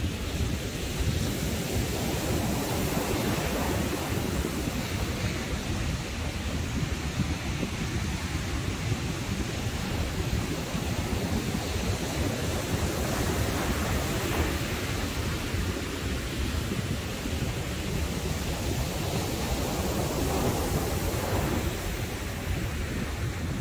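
Surf breaking on a sandy beach, mixed with wind on the microphone: a steady rushing noise with a heavy low rumble underneath.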